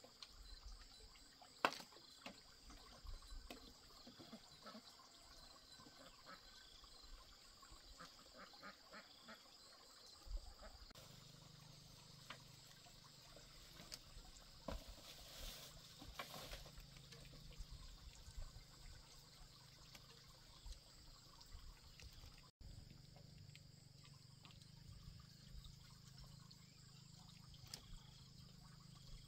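Near silence: faint outdoor ambience with a few scattered light knocks and taps.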